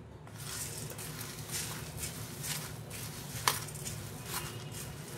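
Puffed rice rustling as a hand tosses it with chopped vegetables and spices in a stainless steel bowl: a steady dry rustle of light grains, with one sharper click about three and a half seconds in.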